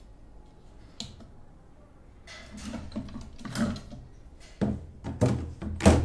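Sujata juicer being taken apart by hand: the stainless-steel mesh filter basket and white plastic parts click, scrape and rattle, then knock sharply three times near the end, the last knock the loudest.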